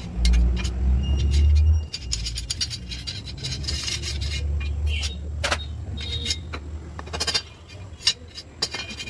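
Steel rods clinking and scraping against each other and the floor as they are handled, in many sharp clinks. Under them is a low rumble, loud at first and dropping off about two seconds in.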